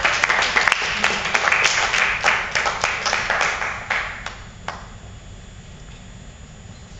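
A small audience clapping, a dense patter of many hands that fades out about four to five seconds in.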